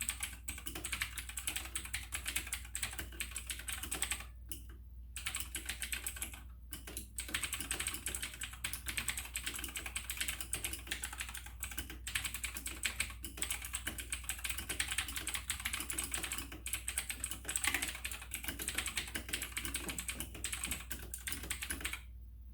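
Fast, continuous typing on a tenkeyless mechanical keyboard with clicky Outemu Blue switches, each keystroke a sharp click. The typing breaks off briefly twice and then stops near the end.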